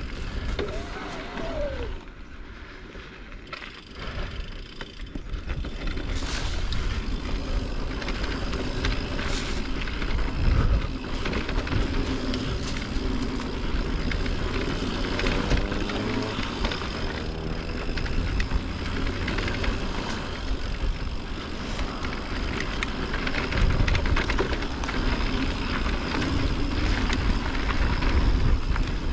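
Mountain bike being ridden on a dirt trail: tyres rolling, the bike rattling, and wind rumbling on the microphone, louder after the first few seconds.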